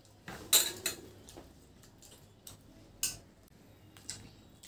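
Spoons clinking and scraping against stainless steel plates as food is scooped up: a few sharp, separate clicks, the loudest about half a second in.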